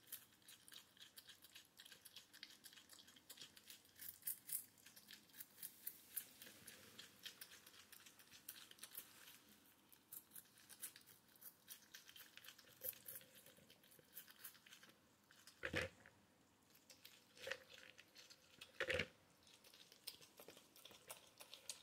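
A porcupine chewing and cracking seeds: a long run of faint, quick, crisp clicks and crunches. Near the end come three louder short sounds, about a second and a half apart.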